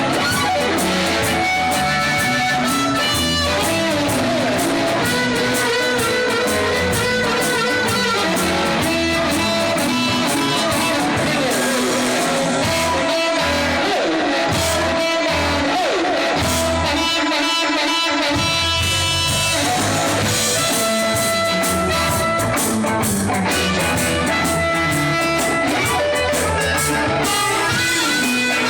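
Live blues band playing an instrumental passage led by guitar, with no singing.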